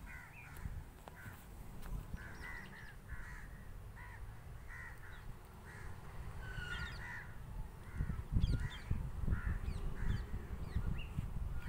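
Crows cawing over and over, two or three short calls a second, over a low rumble that gets louder about eight seconds in.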